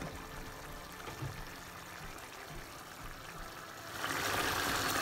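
Koi fish curry simmering in a pan on a gas stove, a faint bubbling of the gravy that grows into a louder, even hiss of bubbling from about four seconds in.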